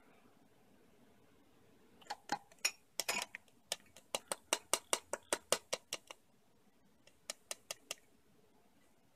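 Metal spoon clinking against a ceramic mug and small glass cups while mug-cake batter is mixed: a few sharp clinks about two seconds in, then a quick regular run of about a dozen clinks, about five a second, and four more near the end.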